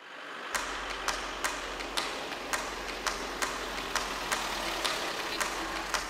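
A four-wheel-drive vehicle driving along a paved road towards the listener, a steady engine and tyre noise that swells over the first second, with a sharp regular ticking about twice a second.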